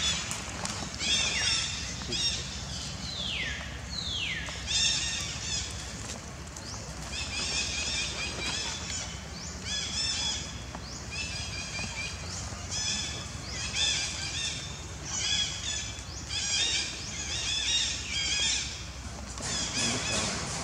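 High-pitched animal calls, chirping in short runs about once a second, with two falling squeals a few seconds in.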